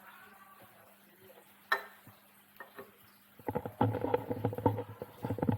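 Water being poured into a cat's drinking bowl, splashing and pattering for about two seconds near the end, after a single sharp click about a second and a half in.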